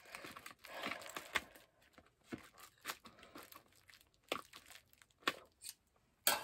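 Scissors snipping through a crumpled plastic bag stiff with cured epoxy, the plastic crinkling, then a series of sharp clicks. Near the end comes a louder sharp knock as the scissors are set down on a table.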